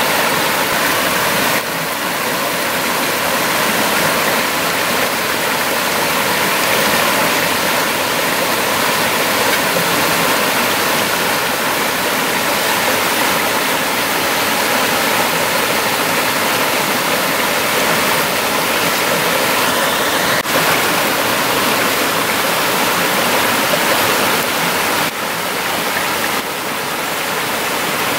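Small forest stream splashing over rocks in low cascades into a pool: a steady rush of running water.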